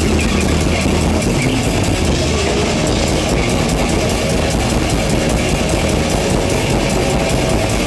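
Heavy metal band playing live, heard from the audience: distorted electric guitars, bass and drums in a loud, dense wall of sound.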